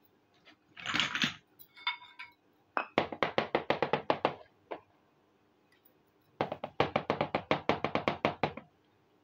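Miniature clay toy pots and cups handled on a tabletop: a short scrape about a second in, a brief ringing clink, then two runs of rapid light taps, about ten a second, each lasting around two seconds.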